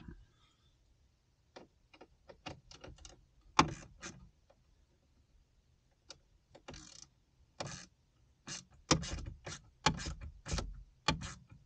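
Ratchet wrench tightening the screws of a door pocket: short, sharp, irregular clicks in small groups, busier in the second half.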